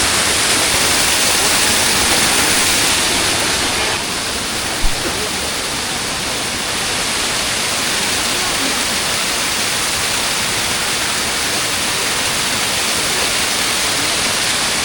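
Waterfall water rushing steadily. A single short knock about five seconds in.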